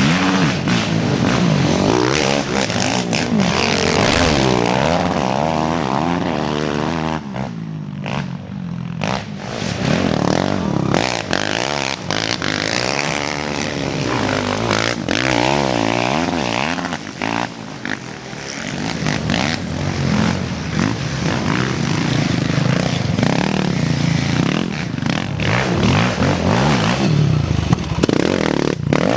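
Several racing sport quads passing one after another, their engines revving hard with the pitch rising and falling as they accelerate through the sand ruts. There are two brief lulls between machines.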